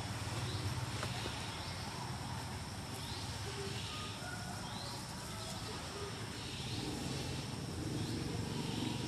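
Outdoor ambience: a steady hiss and low rumble, with a faint high call that repeats about once a second.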